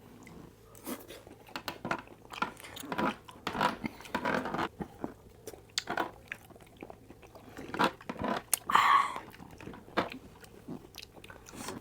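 Close-up mouth sounds of a person chewing octopus: irregular wet smacks and small clicks of chewing and biting, with a brief louder mouth sound about nine seconds in.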